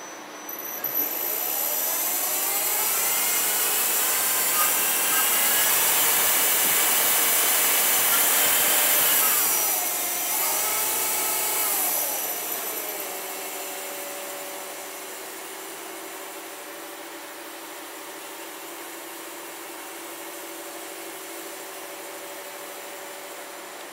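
Spindle of a Takisawa TMM-250 twin-spindle CNC lathe spinning up with a rising whine about a second in, then running at high speed. It slows in two steps, around ten and thirteen seconds in, and settles to a quieter steady hum.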